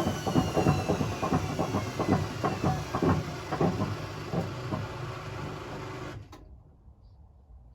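Hotpoint BHWMXL145 washing machine spinning down from its 1400 rpm spin: the motor whine falls steadily in pitch while the drum bangs and rattles, the sign of a broken drum spider with two arms snapped. About six seconds in the noise drops away sharply.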